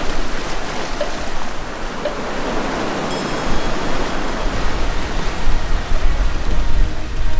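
Sea surf washing against rocks, mixed with wind rumbling on the microphone; the surge swells louder several times.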